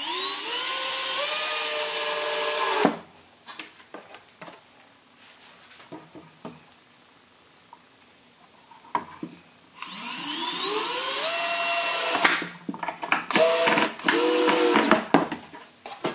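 Cordless drill driving deck screws into a wooden 2x4 shim: the motor whines up in pitch and runs steadily for about three seconds. After a pause with light clicks and knocks, a second screw is driven about ten seconds in, ending in several short bursts of the motor.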